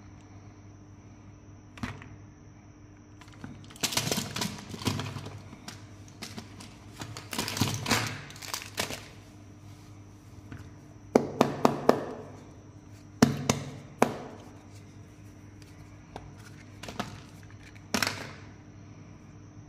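Hands handling plastic candy containers and wrapped sweets: rustling and crinkling of packaging with hard plastic clicks and taps, including a quick run of four sharp clicks a little past the middle. A faint steady hum runs underneath.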